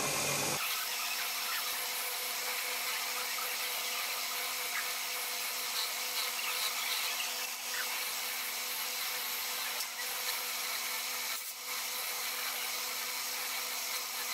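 Rotary wire brush wheel spinning on a machine spindle, scouring carbon deposits off cylinder-head camshaft bearing caps. A steady hiss of bristles on metal runs over the motor's steady hum.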